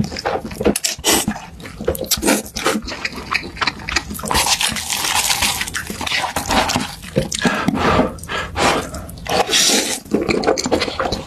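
Close-up eating sounds: wet chewing and slurping of food, a dense run of irregular mouth clicks with longer slurps about four seconds in and again near the end.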